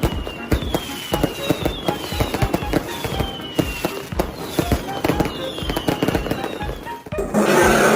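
Fireworks-like sound effect: a rapid string of pops and bangs, with a high falling whistle repeating about once a second. About seven seconds in it swells into a louder, denser burst.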